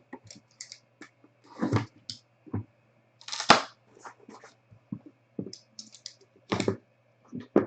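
Hands opening a sealed trading-card box and pack: a string of short rustles, crinkles and taps of cardboard and plastic wrapping, the loudest about three and a half seconds in.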